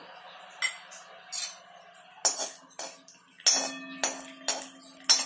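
Mustard seeds spluttering in hot oil in a steel kadai: sharp, irregular pops and clicks, mixed with a steel spatula stirring and knocking against the pan. A knock about three and a half seconds in sets the pan ringing with a steady tone for over a second.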